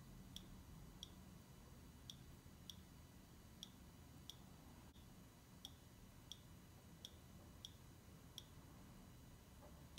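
Near silence: faint room hum with a soft, light click repeating at uneven intervals of roughly two-thirds of a second to a second, stopping shortly before the end.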